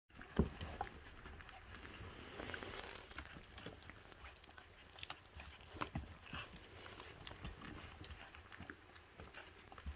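Twenty-day-old puppies feeding on raw meat: faint, irregular smacking and chewing with small grunts and squeaks.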